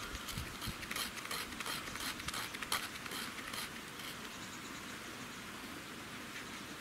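Knife blade scraping birch bark in quick, irregular strokes to raise fine shavings for fire-lighting tinder. The strokes come thick for the first three seconds or so, then thin out.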